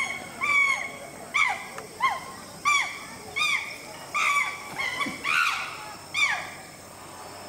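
A chimpanzee screaming in a run of about nine short, high calls, one every second or less, each dropping in pitch at its end; the calls stop shortly before the end.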